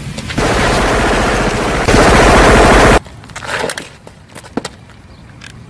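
Rapid automatic gunfire from a pistol and a rifle, a dense volley that gets louder about two seconds in and cuts off suddenly about three seconds in. A few faint knocks follow.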